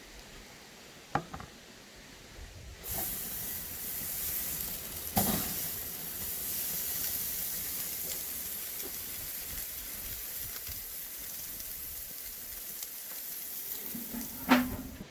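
Pork tenderloin sizzling on a hot grill, a steady hiss that starts about three seconds in. A few sharp clicks and knocks come through it, near the start, about five seconds in, and near the end.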